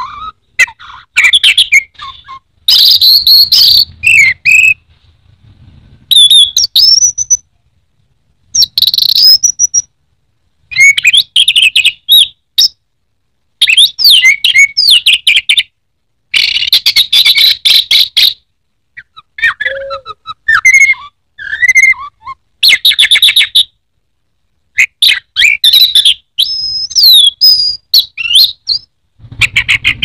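Orange-headed thrush (anis merah) singing loudly in repeated bursts of rapid, varied whistles and chattering notes, each burst a second or two long with short pauses between.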